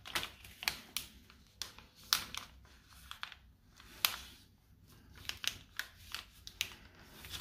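A4 paper being folded and creased by hand: irregular crisp rustles and short crackles as the folds are pressed flat.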